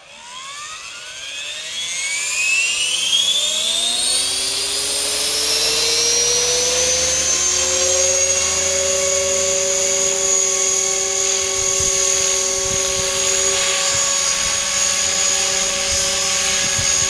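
Align T-REX 500 electric RC helicopter spooling up: the brushless motor and rotor whine climbs in pitch for the first several seconds, then holds a steady high pitch in flight. Wind rumbles on the microphone in the second half.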